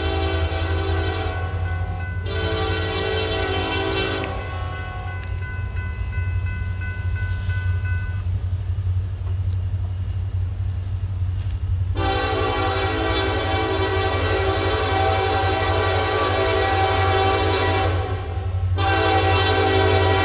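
Norfolk Southern freight locomotive's air horn sounding in repeated blasts over the steady low rumble of the train. There are two blasts in the first four seconds, the second trailing off. About twelve seconds in comes a long blast of roughly six seconds, then another after a brief break.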